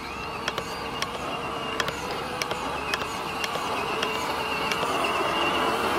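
Electric motor and gears of a 1/10-scale MST CMX RC crawler whining as it drives on asphalt. The whine rises in pitch as it spins up at the start, with tyre noise and scattered small clicks, growing louder as the car comes closer.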